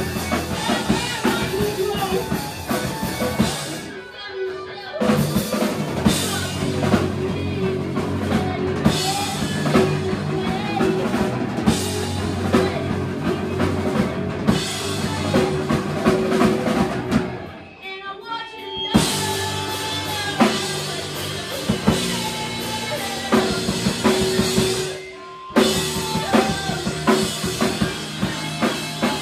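Live rock band playing a song, with the drum kit loud and kick drum prominent. The music cuts out briefly three times: about four seconds in, around the middle with a longer pause of a second or so, and again about three-quarters of the way through, each time starting straight back up.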